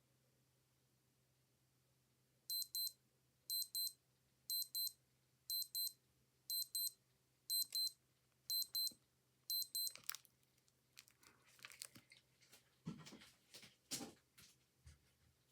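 Old digital watch alarm beeping: eight quick, high-pitched double beeps, about one pair a second, then it stops. Scattered clicks and rustling of handling follow for the last few seconds.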